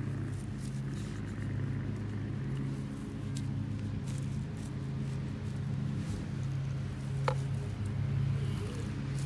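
A steady low hum that swells and fades, with faint scrapes and rustles of a hand digging tool working through loose soil and grass, and a sharp click about seven seconds in.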